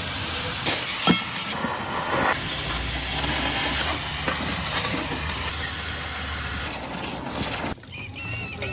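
Steady hissing noise with a few sharp knocks, cutting off suddenly near the end.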